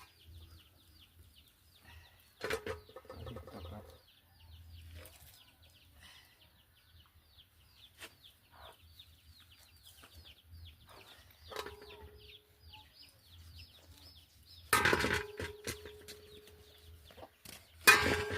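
Domestic chickens: a long, even run of quick, high cheeps, with louder calls about two and a half seconds in and again near the end.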